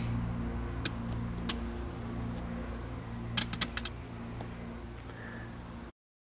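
A low steady hum with a few scattered sharp clicks, slowly fading and cutting off abruptly about six seconds in.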